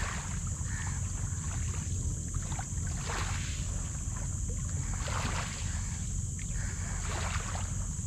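Wind buffeting the microphone with a steady low rumble, over small sea waves lapping at a rocky mangrove shore in soft swells every couple of seconds.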